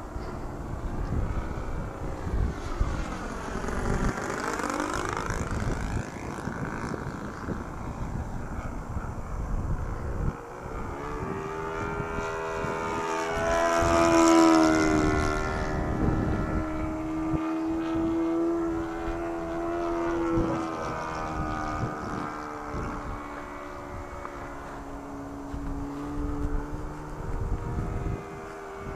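Radio-controlled scale model Zero fighter flying overhead, its engine and propeller note holding steady and then sweeping in pitch as it passes. The loudest, closest pass comes about halfway through. Wind rumbles on the microphone underneath.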